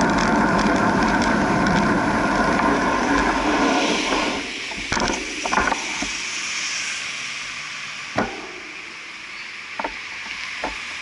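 Wind and rolling noise from a moving bicycle, heard on its mounted camera, cut off about four seconds in as the bike comes to a stop. Passing street traffic follows, more quietly, broken by a few sharp clicks.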